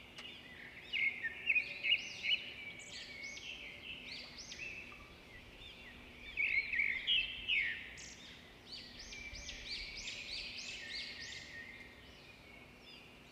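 Small birds chirping and twittering in quick runs of high, rising-and-falling notes, with short lulls between the runs.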